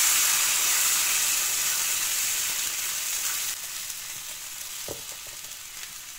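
Beef demi-glace sizzling in the hot oil of a frying pan as it is poured in, the sizzle fading steadily and dropping off about three and a half seconds in. A single light knock about five seconds in.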